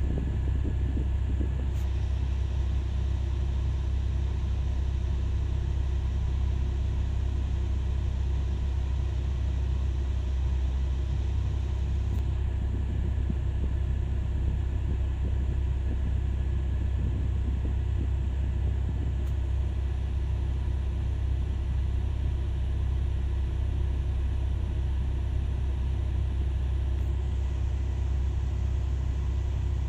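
Caterpillar 6020B hydraulic mining shovel running at close range: a deep, steady rumble with a few faint steady tones above it.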